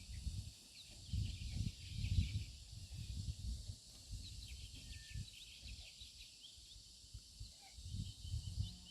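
Wind gusting against the microphone in uneven low rumbles, with many short high chirps of small birds and a steady high insect drone behind.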